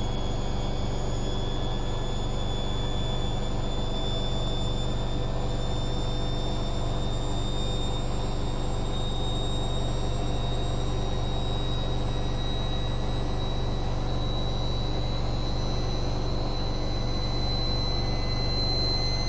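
Hoover Dynamic Next washing machine spinning on its spin-only programme: a steady low rumble from the drum with a high motor whine that rises slowly in pitch as the spin speeds up.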